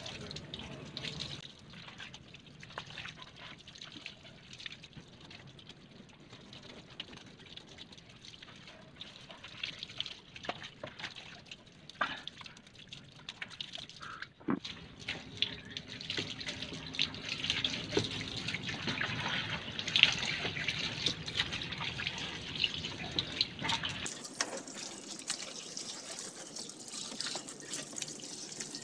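Water from a garden hose running and splashing over a scooter's front wheel and onto the concrete floor, with hands rubbing the wet wheel and bodywork; irregular drips, small knocks and splashes throughout, growing louder about halfway through.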